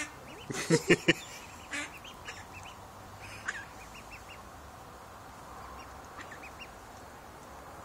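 A mother duck quacks loudly a few times about a second in, and her ducklings keep up short, high peeping calls through the rest.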